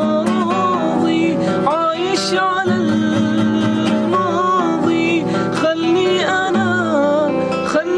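Khaleeji (Gulf Arabic) pop song: an ornamented, gliding sung melody over plucked-string accompaniment.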